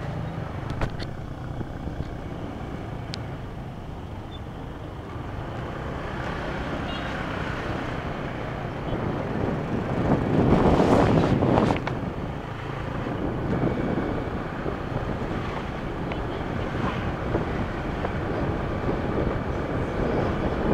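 Motorbike ride through city traffic: the bike running along with the surrounding traffic and wind on the microphone, swelling into a louder rush about ten to twelve seconds in.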